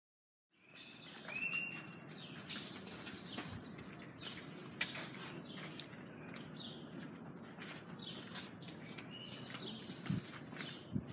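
Birds chirping and calling, a stream of short chirps, clicks and whistles over a steady background noise.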